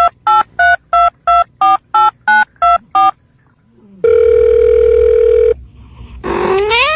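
Telephone keypad tones: about ten quick two-tone beeps as a number is dialled, then one steady tone lasting about a second and a half. A rising, voice-like call starts near the end.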